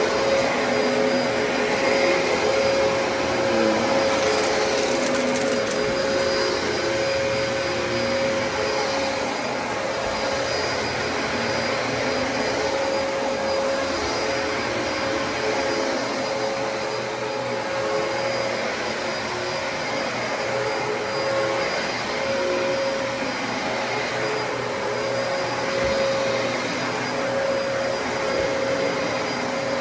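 Dyson DC33 upright vacuum cleaner running steadily, its motor noise carrying one clear steady mid-pitched whine.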